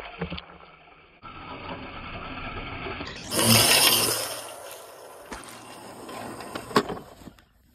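Husqvarna Automower robotic mower running, its spinning blade disc fitted with shortened carpet-knife blades cutting grass. About three seconds in the sound jumps to a louder rushing noise for about a second, and there is a sharp click near the end.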